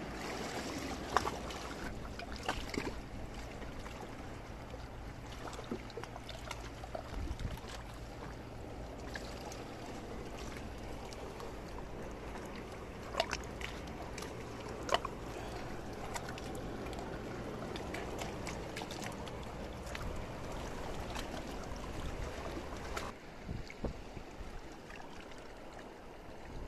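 Shallow seawater trickling and lapping over rocks and pebbles in a tide pool, as a steady wash with a few sharp clicks.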